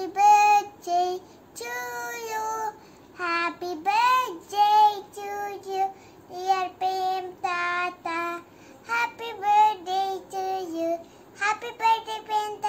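A young girl singing unaccompanied, in short sung phrases separated by brief pauses.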